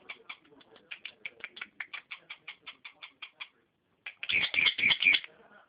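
Small pet birds chirping: a fast, even run of short high chirps, about seven a second, then after a brief pause a much louder, denser burst of chirping for about a second near the end.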